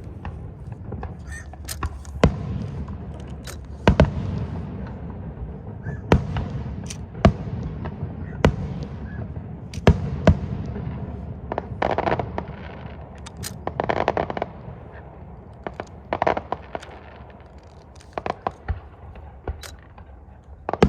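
Aerial fireworks going off: sharp, irregular bangs of shells bursting, roughly one or two a second, with spells of crackling effects about halfway through.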